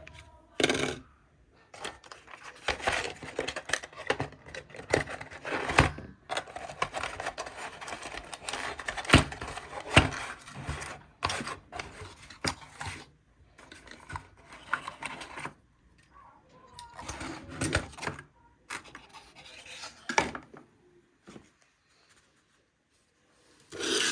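Hands handling desktop PC parts during assembly: irregular rustling and scraping broken by sharp clicks and knocks, with short pauses in between.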